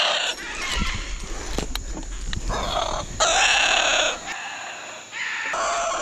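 Scarlet macaw giving harsh, raucous screeches in three bouts: at the very start, about three seconds in, and near the end. These are the defensive calls of a nesting adult at a climber close to its nest.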